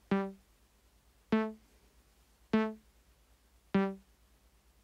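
Eurorack synthesizer voice playing a repeating sequenced note from a Monome Teletype sequencer: four short plucked notes, each starting sharply and dying away quickly, about one every 1.2 seconds.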